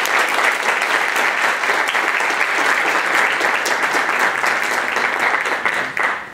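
Audience applauding steadily, dying away just before the end.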